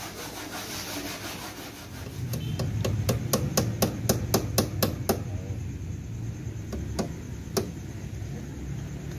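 Quick metal taps of a hand tool on a Vespa Sprint's steel body shell, about four a second for some three seconds, then a few single taps, over a low steady hum.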